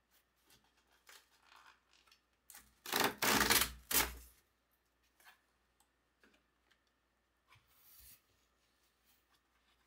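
Cardboard mailer box's perforated tear strip being ripped open: a loud ripping of about a second and a half near the middle. Softer cardboard rubbing and rustling comes before and after it, with another short scrape near the end.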